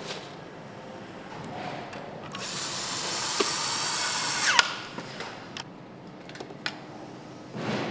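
Cordless drill-driver running for about two seconds, driving a screw into a motorcycle part, then winding down with a falling whine. A few light clicks and knocks follow.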